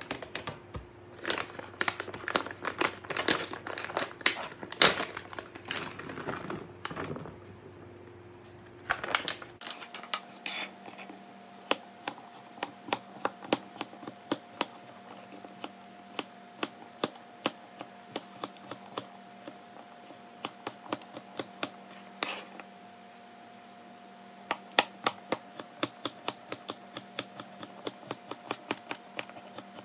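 A plastic snack bag and a sheet of paper crinkling and rustling as they are handled, then, from about a third of the way in, a kitchen knife chopping peeled roasted chestnuts on a cutting board in a long run of sharp taps, a few per second.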